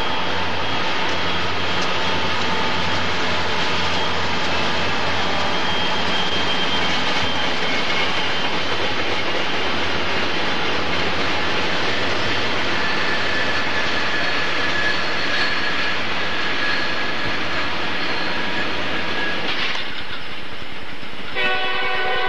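A diesel-hauled freight train passing close by: the locomotive's engine runs with a steady low drone, and the cars roll by on steel wheels with a constant clatter and a thin squeal at times. Near the end a steady chord-like horn tone starts.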